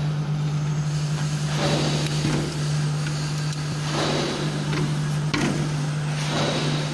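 Steady low electrical hum from a powered-on UN1-25 resistance butt welder, with clanks and scrapes several times as a mild-steel rod is set into its clamps.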